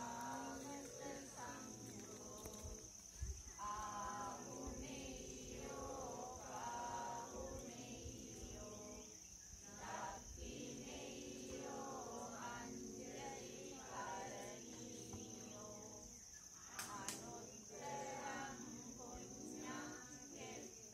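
Slow, melodic singing of a voice in long drawn-out phrases, with short pauses between them, over a steady high insect drone.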